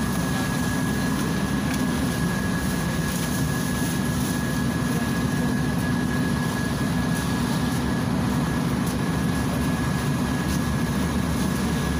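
Inside a Volgabus 5270G2 city bus standing still, its Yuchai YC6L280N natural-gas engine idling with a steady low drone and a thin steady whine above it.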